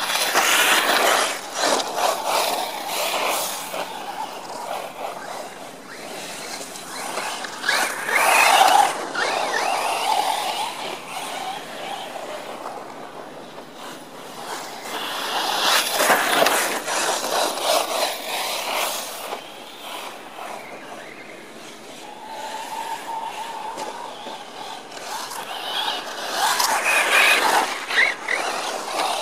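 Radio-controlled off-road cars running laps on a dirt track: motor whine rising and falling with the throttle, mixed with tyres scrabbling on loose dirt, coming and going in several passes.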